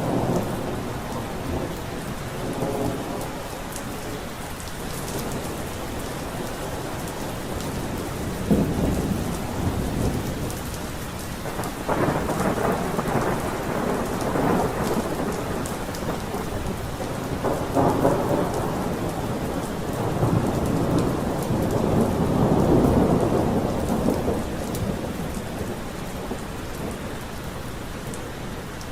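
Steady rain with thunder rumbling again and again. The rolls swell and fade, and the loudest comes about three-quarters of the way through.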